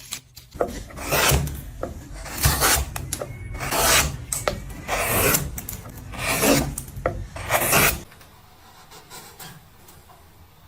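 A hand tool scraping over wood in long, even strokes, like a rasp or coarse abrasive: about six strokes, one every second or so, stopping about eight seconds in.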